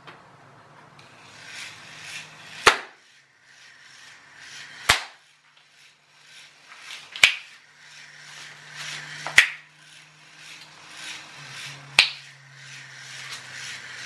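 Five sharp finger snaps, about one every two and a half seconds, each setting off the sound-activated receiver to switch the robot spider's small electric motor. Between snaps the motor hums faintly and the plastic legs clatter lightly.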